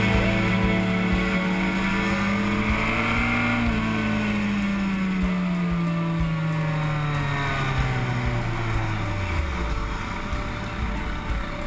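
Kawasaki Ninja sport bike engine running at speed with wind rushing over the camera microphone; its pitch rises slightly, then falls steadily from about four seconds in as the throttle is rolled off, dropping low near the end as the bike slows.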